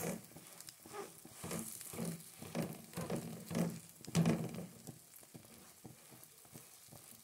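A bread roll and egg sizzling in a nonstick frying pan, with a slotted spatula pressing and scraping against the roll and the pan in a run of short scrapes. The scrapes stop about four and a half seconds in, leaving a quieter sizzle.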